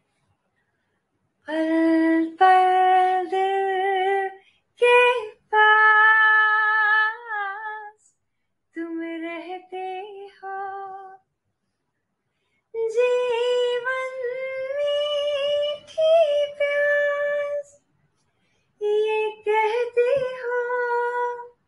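A woman singing unaccompanied, in five long phrases with held, wavering notes and short silent pauses between them.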